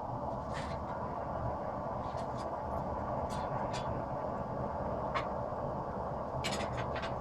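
Propane gas forge burner running with a steady rushing noise, with a few light clicks scattered over it.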